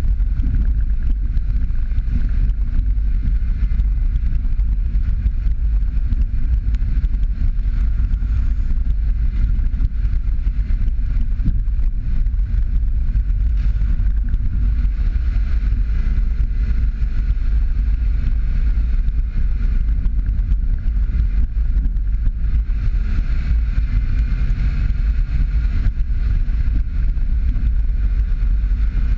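Jeep Patriot driving slowly along a wet, rutted dirt road: a steady, even rumble of engine, tyres and wind buffeting the microphone.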